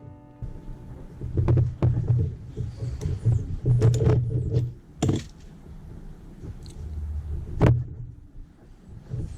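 A chain press and riveting tool being worked on a motorcycle chain's connecting link: irregular metal clicks and knocks over a low rumble of handling, with sharper knocks about a second and a half in, around four and five seconds, and near the end.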